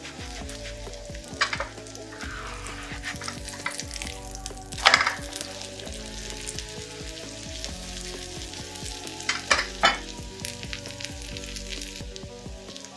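Potato-and-egg pancake frying in vegetable oil in a nonstick pan: a steady sizzle with crackling pops. Louder spits of hot oil come about a second and a half in, about five seconds in (the loudest), and twice close together near ten seconds.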